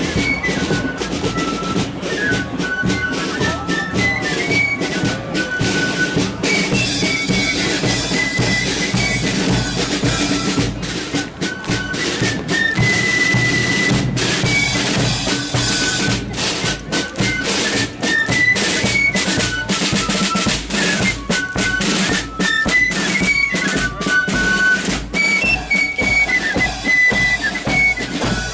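Marching flute band playing a march: a high flute melody moving from note to note over bass drum and snare drums.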